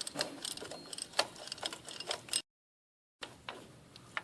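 A hand ratchet clicking and metal tools and bolts tapping while bolts are fitted on a transfer case, in irregular sharp clicks. The sound cuts out completely for under a second about halfway, then the clicking carries on more quietly.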